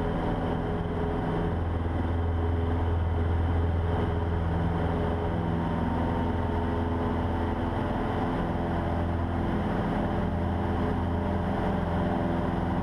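Cessna 150's Continental O-200 four-cylinder engine and propeller running steadily at full takeoff power, heard inside the cabin.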